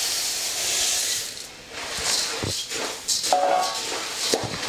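Roasted puffed rice poured into a large metal pan of hot tempering for bhadang, a rustling hiss for about the first second and a half. Then it is stirred with a perforated steel ladle, which scrapes and knocks against the pan.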